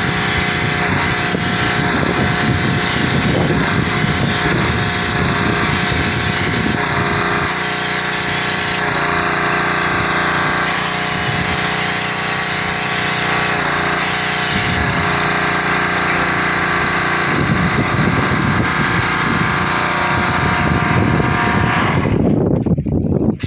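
Pressure washer's small gas engine running steadily, with the hiss of the high-pressure water spray hitting the truck; the sound cuts off abruptly near the end.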